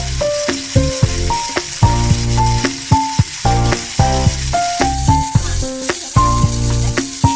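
Chicken wings sizzling as they fry in a pan, a steady hiss, under background music with a melody of short notes over a bass line.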